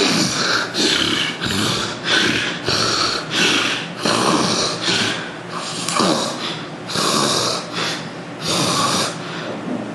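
A man snoring loudly: rasping snores and snorts in quick succession, roughly one every half second to second.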